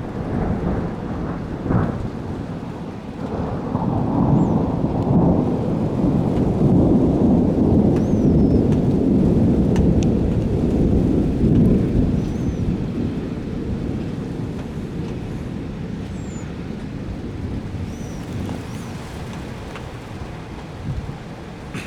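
Thunder during a snowstorm (thundersnow): a sharp crack about two seconds in, then a long low rolling rumble that builds, holds loud for several seconds and slowly dies away.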